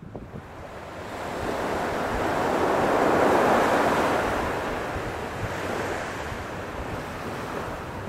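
A small wave breaking and washing up a sandy beach, rising to its loudest about three and a half seconds in, then fading.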